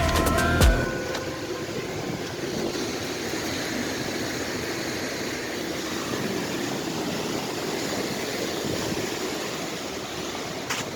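Steady rush of strong wind and rough-sea surf, with no clear breaks or single events.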